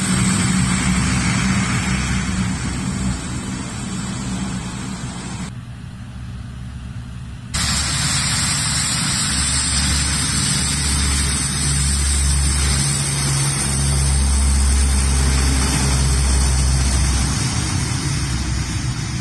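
C-130 Hercules four-engine turboprop transport on the runway, its engines and propellers making a loud, steady drone with a low hum underneath. The sound turns muffled and drops briefly about six seconds in, then comes back loud.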